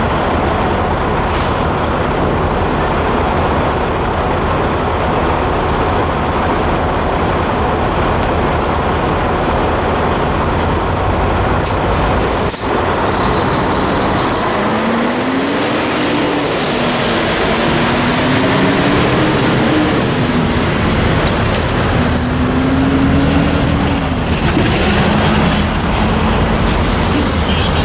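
Steady rumble of traffic and engines at a level crossing. A sharp click comes about halfway through, then cars and a box truck pull away over the tracks, their engine notes rising and falling several times.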